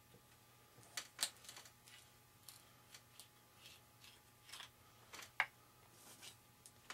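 Faint scattered clicks and rustles of hands handling small parts on a foam model airplane, with a sharper click about a second in and another a little past five seconds.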